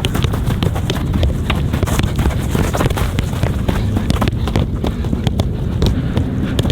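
A soccer ball being dribbled with quick, irregular touches and taps, a dense patter of short knocks over a steady low rumble.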